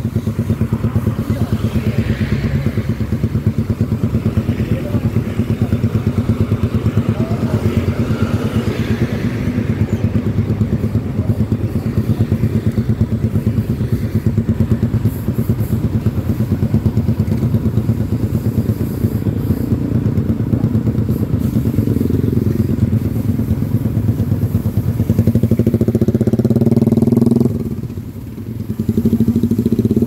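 Yamaha Jupiter MX King 150's single-cylinder four-stroke engine idling with a steady, evenly pulsing beat while the bike waits at a stop. A few seconds before the end the revs rise briefly, then the sound dips for a moment and settles back to idle.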